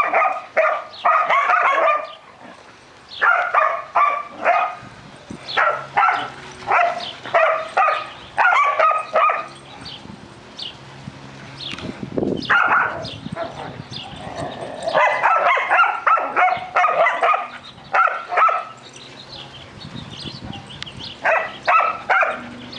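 Belgian shepherd dogs barking in play, in runs of quick barks broken by short pauses, several runs in a row.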